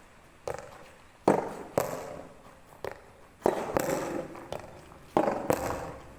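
Soft tennis balls being struck by rackets and bouncing on the court: about eight sharp pops at uneven intervals of half a second to a second.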